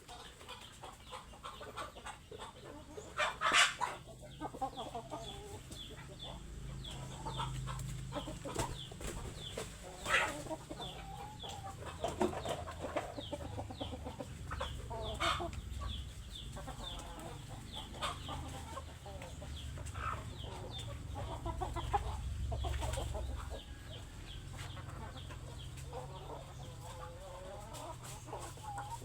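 Hungry domestic chickens clucking in a flock, the calls overlapping, with a few louder, sharper squawks standing out about three and a half, ten and fifteen seconds in. A dense run of short ticks and a low rumble sit under the calls.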